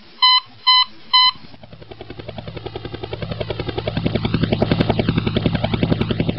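About four short warning beeps in the first second and a half, then a small quadcopter drone's propellers spin up and it lifts off, a steady buzzing hum swelling in level as it rises.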